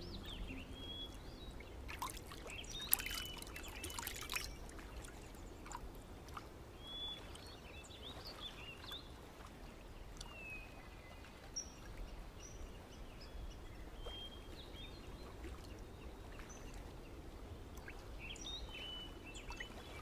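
River water lapping and splashing at the edge of stone steps, with a cluster of splashes about two to four seconds in, and scattered small bird chirps.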